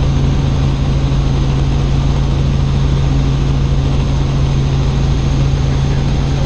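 Helicopter in flight heard from inside the cabin: steady engine and rotor noise with a strong, even low hum.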